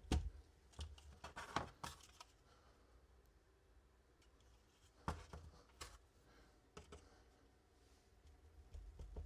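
Scattered clicks and light knocks of a mechanical keyboard being handled and shifted into position in a plastic computer case: a cluster in the first two seconds, then a few single clicks near the middle.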